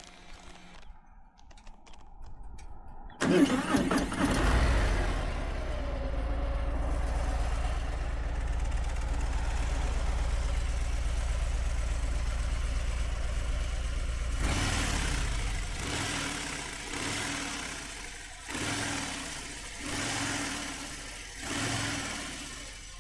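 Stock 2023 Harley-Davidson Fat Boy's 1,868 cc (114 cubic inch) Milwaukee-Eight V-twin, after a few faint clicks, cranks and fires about three seconds in. It settles into a steady, low idle, then near the end the throttle is blipped five times, each rev rising and falling back to idle.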